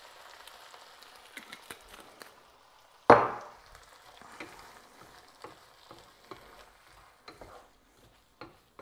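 Tomato-based chilli sauce sizzling in a hot frying pan as it is stirred with a wooden spatula, with a sudden loud burst of sizzling about three seconds in, then softer scrapes and sizzles.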